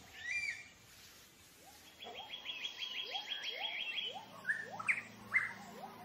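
Several forest birds calling together: a rapid high trill of about a dozen notes, short rising whistles repeated about every half second, and a few louder sharp calls near the end.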